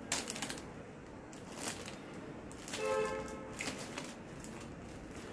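Rustling and scratching of a pop-up mesh laundry hamper and the clothes in it as a cat swipes and shifts inside it, in several short bursts. About three seconds in comes a brief pitched squeak.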